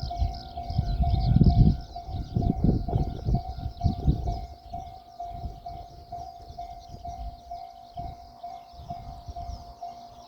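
Japanese level-crossing warning bell ringing its steady 'kan-kan' tone, about two strikes a second. Heavy low rumbling fills the first four seconds or so, then fades.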